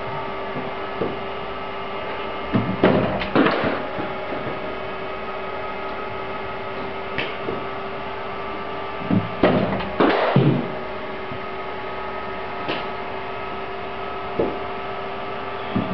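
Steady electrical hum with several fixed tones. About three seconds in, and again around ten seconds, it is broken by short clusters of knocks and scuffs as deliveries are played in an indoor cricket net.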